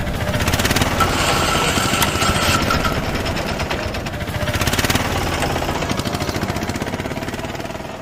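A vehicle engine running close by with a fast, even chugging. A thin steady tone sounds over it for a couple of seconds from about a second in.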